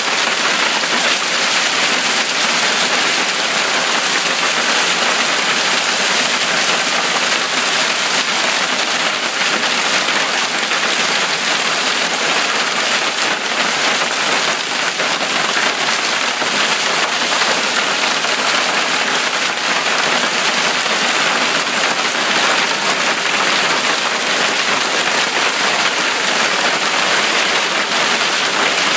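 Hailstorm: hailstones and rain pelting the ground and nearby surfaces in a loud, steady, dense rush of countless small impacts.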